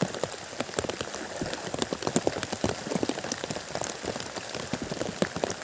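Rain falling, with many close raindrops ticking irregularly on a nearby surface.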